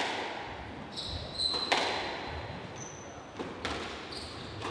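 Squash ball struck hard during a rally, two sharp echoing cracks about two seconds apart, with short high squeaks of court shoes on the wooden floor between them.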